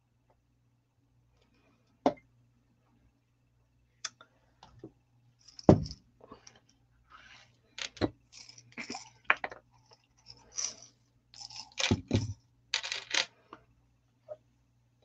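Craft supplies handled on a tabletop: scattered clicks, taps and rattles of small beads and gems in a jar and items being set down. A few heavier knocks stand out, about six seconds in and again near twelve seconds.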